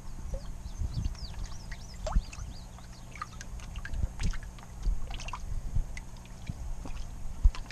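Comet goldfish and a koi splashing and slurping at the water's surface as they snatch floating pieces of bread, a scatter of small irregular splashes and smacks over a steady low hum.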